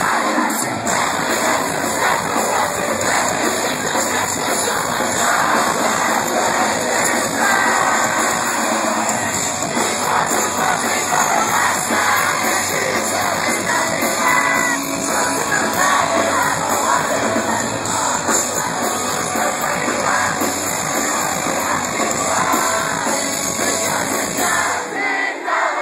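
Post-hardcore rock band playing loud and live with a singer, heard from inside the crowd, with crowd noise mixed in.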